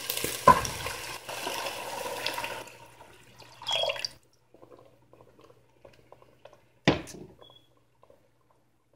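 Water being poured into a hot pan of fried rice and spices, splashing and hissing for about three seconds before fading away. A short rush of noise follows near four seconds in, and a single sharp knock comes about seven seconds in.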